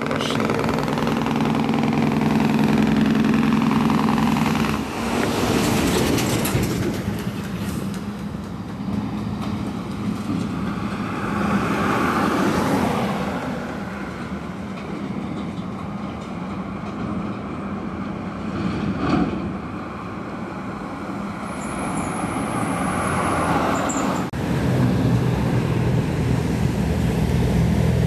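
Heavy diesel trucks running on the road. The engine drone is strongest in the first five seconds and again from about 24 seconds in, with lighter traffic and road noise between.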